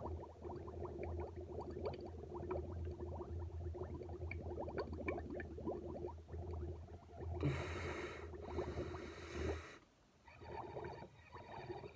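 Air blown through a drinking straw into a glass of milk, bubbling and gurgling in rapid small pops. From about seven and a half to nine and a half seconds in, a louder breathy hiss sounds over the bubbling. The bubbling drops out briefly near ten seconds, then resumes more faintly.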